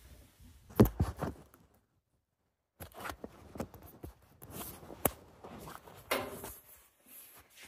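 Close handling noise: a sharp knock about a second in, then after a brief cut to dead silence, scattered clicks, rubs and rustles.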